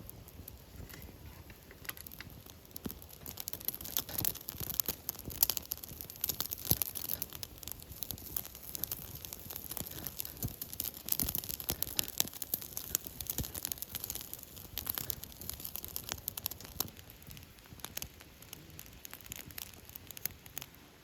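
Dense, rapid crackling and popping over the campfire, busiest in the middle and thinning toward the end.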